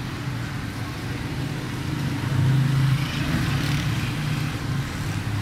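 Street traffic: a steady low engine hum, growing louder about two and a half seconds in as a vehicle passes close by.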